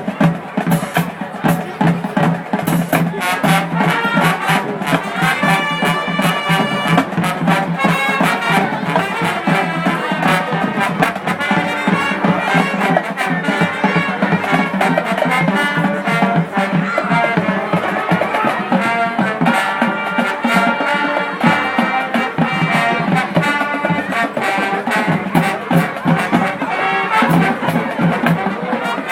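Marching band playing a swing tune: massed trumpets and trombones over drums, loud and continuous.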